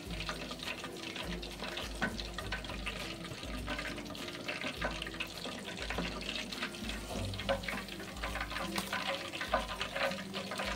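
Hot oil sizzling and crackling steadily in a kadai as coated chicken pieces are double-fried on high flame and lifted out with a wire spider strainer.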